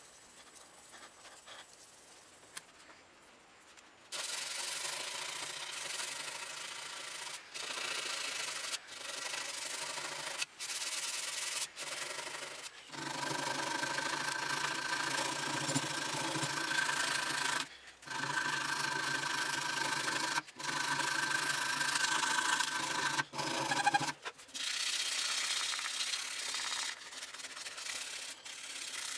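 Abrasive sanding on a steel knife blade. It starts about four seconds in and goes in long passes with brief stops. Through the middle passes a steady hum runs under the scraping.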